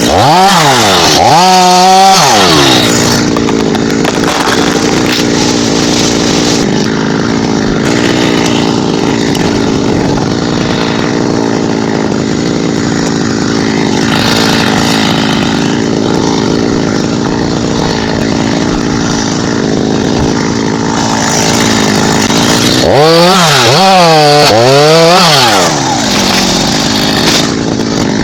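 Chainsaw running steadily while cutting thambakam wood. Its engine is revved up and down a couple of times near the start and again a few times about 23 seconds in.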